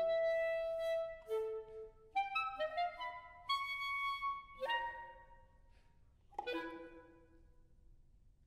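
Contemporary chamber music played live on clarinet and saxophone: a held note, then a run of short notes stepping upward. Two sharp accented attacks follow and ring away, then a short silent pause near the end.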